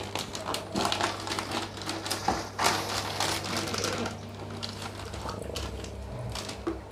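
Plastic fish transport bag crinkling and crackling in quick irregular clicks while a small hand net is worked inside it to catch the fish, over a steady low hum.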